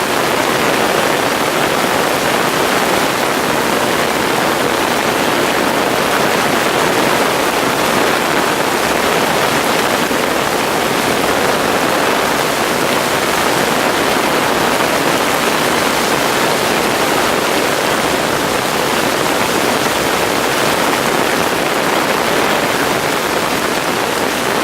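Heavy tropical-storm rain: a loud, steady, even rush of water with no breaks.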